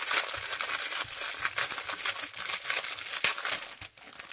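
Crinkly packaging from a diamond painting kit being handled, a busy run of crackles and rustles.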